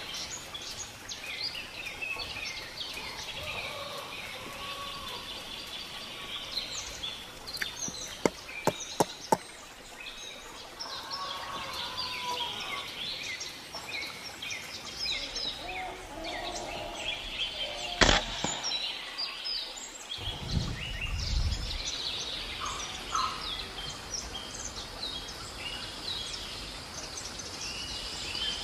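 Birds chirping throughout. About eight seconds in come four quick sharp clicks. About eighteen seconds in there is a single sharp crack of an air rifle shot, and a low rumbling thud follows a couple of seconds later.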